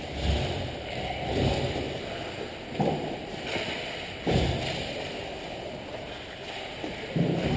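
Indoor ice hockey rink during play: a steady hiss of skating and arena noise with several dull thuds at irregular intervals, the loudest about four seconds in, such as pucks, sticks and players hitting the boards.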